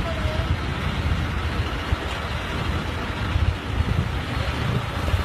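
Diesel engine of a JCB mobile crane running steadily while it lifts a suspended shipping container, a continuous low rumble.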